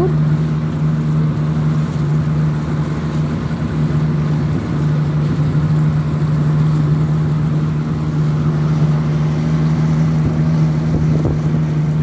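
A small boat's engine running at a steady speed, with water rushing and splashing around the hull.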